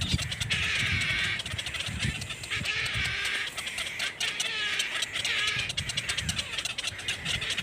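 Young birds calling: a run of high, wavering chirps, some bending in pitch, over low thumps and rustling.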